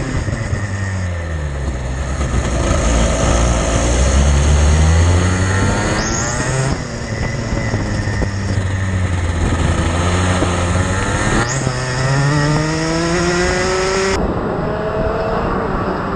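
Racing kart engine heard from the kart itself, its revs dropping and then climbing again several times as it brakes and accelerates. About two seconds before the end the sound switches abruptly to a thinner, more distant kart engine sound.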